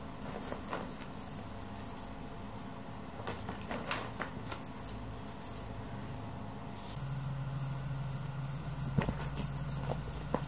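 Feather wand cat toy rustling and rattling against a shaggy rug in scattered short bursts, with a few soft taps. A low steady hum comes in about seven seconds in.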